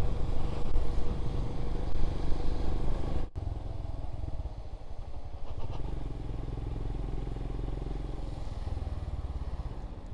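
Royal Enfield Scram 411's single-cylinder engine running as the motorcycle is ridden, with wind and road noise mixed in. The sound drops sharply about three seconds in and stays quieter after that.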